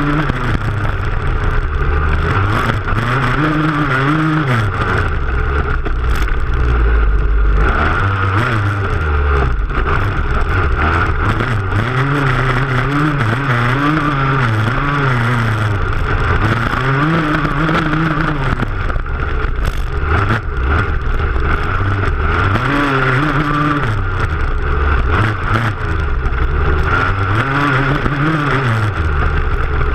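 Dirt bike engine heard close up from the rear fender, revving up and dropping back every few seconds as it is ridden hard over rough ground, with knocks and rattles from the bumps.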